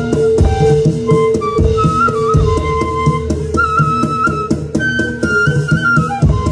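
Live Javanese Topeng Ireng music: a flute-like melody stepping between high notes over a held low note, with repeated drum strokes and percussion underneath.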